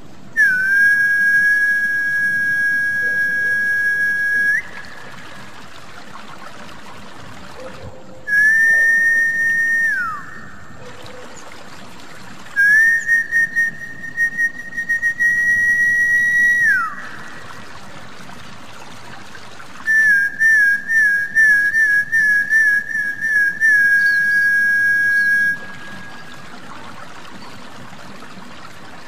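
Snakehead fish lure whistle, a call meant to bring snakeheads up to the surface: four whistled phrases, the first long and steady, the second short and ending in a falling glide, the third held with a slight rise and dropping at the end, the fourth a run of quick warbled notes that settles into a held tone. Trickling water runs softly underneath and fills the gaps between phrases.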